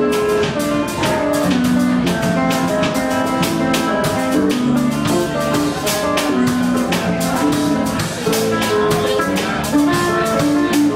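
Live band playing a bossa-style tune on drum kit and guitar, with a steady, even beat.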